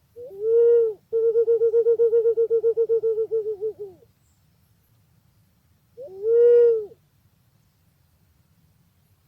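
Punai pink (walik ungu) pigeon calling: a single low hooting note, then a long fast trill of hoots, about a dozen a second, that trails off over about three seconds, and one more single hoot about six seconds in.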